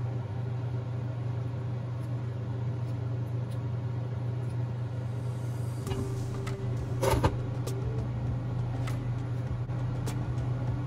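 A steady low hum of kitchen machinery runs throughout, with a single short knock about seven seconds in.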